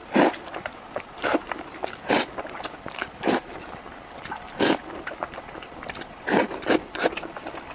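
Close-miked eating: a person slurping and chewing saucy fried eggs. About eight loud wet slurps come at uneven spacing, roughly one a second, with soft smacking and clicking of mouth and chopsticks between.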